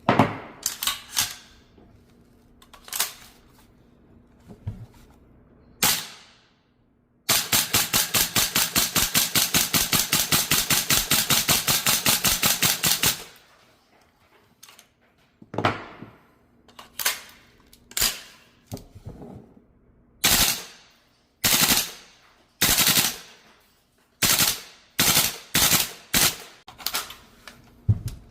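VFC AR-15 gas blowback airsoft rifle firing: a few single semi-auto shots, then a full-auto burst of about six seconds, then single shots again at uneven intervals, each with the sharp crack of the bolt cycling.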